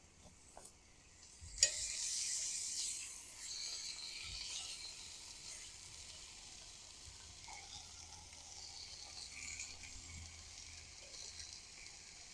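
Beef steak hitting a hot skillet with a sharp tap, then sizzling. The sizzle is loudest for the first second or so and settles to a steady, quieter sizzle.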